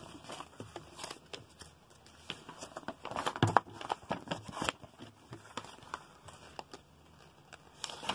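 Glossy paper catalogues being handled and shuffled: irregular rustling and crinkling, with a denser run of louder crackles from about three to almost five seconds in.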